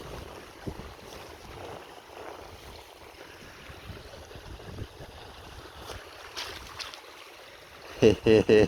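Careful footsteps through the frozen edge of a creek in muck boots, with faint crunches over a steady hiss of wind on the microphone. Near the end comes a quick run of four short, loud, pitched sounds.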